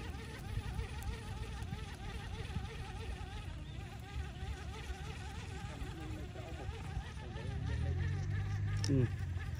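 Swarm of mosquitoes whining close to the microphone, many wavering high tones overlapping, over a low rumble. A steady low hum joins near the end.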